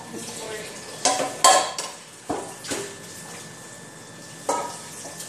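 Metal kitchenware clattering on the stovetop: about five sudden knocks with brief ringing over four seconds, the loudest about one and a half seconds in.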